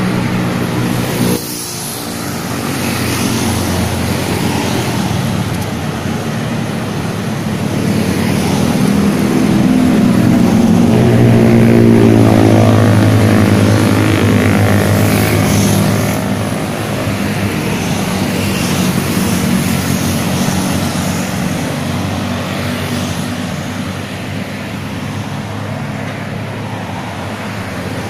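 Road traffic of motorbikes and cars passing, a continuous engine hum. It swells to its loudest about halfway through, with a falling pitch as an engine goes by, then eases off.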